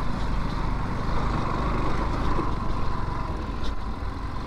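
Motorcycle engine running steadily while riding on a rough off-road stretch, with steady wind and road noise.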